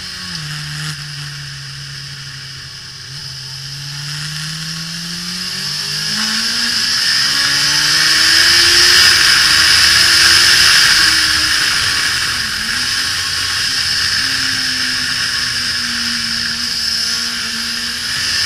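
2005 Suzuki GSX-R1000's inline-four engine on a fast track lap, heard from an onboard camera with heavy wind rush. The engine note drops at the start, then climbs steadily for several seconds as the bike accelerates, dips briefly about twelve seconds in and holds. The wind noise is loudest about nine to eleven seconds in.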